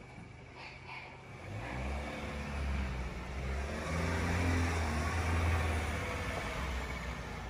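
Ford Raptor pickup's engine pulling away and accelerating, rising in pitch and loudness from about a second and a half in, then easing off near the end. Two short sharp sounds come just before it.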